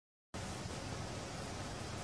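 A moment of dead silence at a cut, then a steady, even hiss of background noise with a low rumble and no distinct events.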